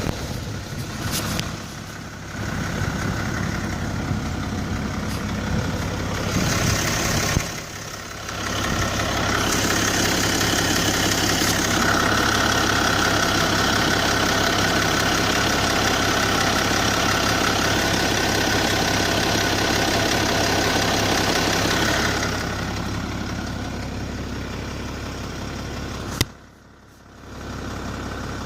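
BMW M57N2 straight-six common-rail diesel running, with an abnormal noise that the owner calls a bad sound. It grows louder for a long middle stretch with a steady high whine on top, then eases back; a sharp click and a brief dip come near the end.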